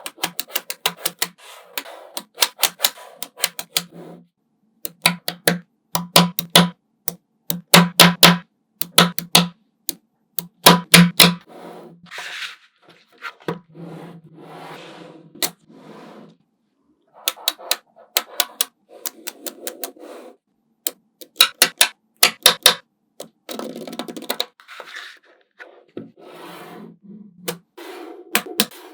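Small magnetic balls clicking and snapping together in quick runs of sharp clicks as they are set into a build, with softer rustling of balls being pushed and rolled between the runs.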